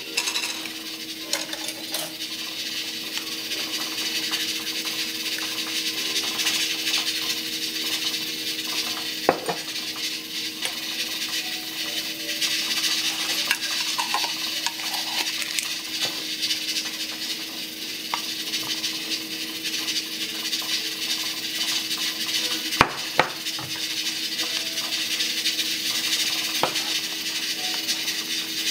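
Food preparation handling: a wooden spoon scraping mashed avocado from a ceramic bowl and spreading it on toast, with a few sharp clicks scattered through and a steady low hum underneath.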